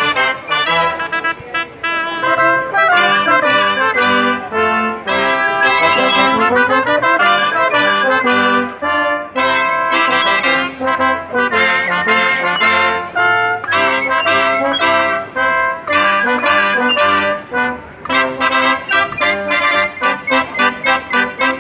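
A cobla, the Catalan sardana band, playing a sardana live: a brass-led passage with trumpets carrying the melody and chords. Near the end the notes turn short and detached, about two a second.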